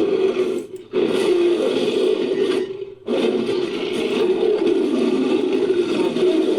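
Sound-designed creature vocalisation mixed from animal and monster roar recordings: long, rasping growls, broken by short pauses about a second in and again about three seconds in.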